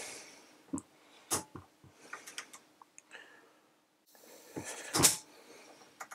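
3/8" drive insulated slipper-type torque wrench being pulled on a torque tester: a few light clicks as it is handled on the drive, then about five seconds in a sharp clunk as the slipper mechanism lets go at its 25 Nm setting.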